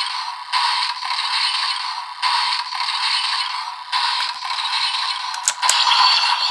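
DX Primitive Dragon Wonder Ride Book toy playing a looping electronic sound effect through its small speaker, a pattern that repeats about every second and a half to two seconds. Near the end come two sharp plastic clicks as a Lion Senki Wonder Ride Book is pushed into its slot.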